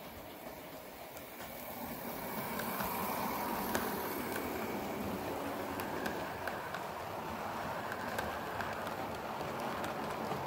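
Model diesel locomotive and coaches running past on model railway track. The wheels rumble and click over the rail joints, growing louder about two seconds in as the train draws close, then running on steadily as the coaches go by.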